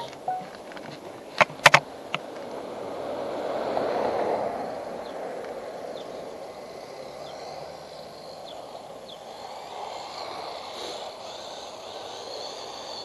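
Small RC car's electric motor whining with tyre noise on the ground, swelling to its loudest about four seconds in as it passes close, then running on more quietly. Two sharp clicks come about a second and a half in.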